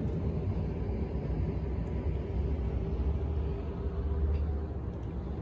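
Attic air-conditioning air handler running: a steady low rumble with a faint hum.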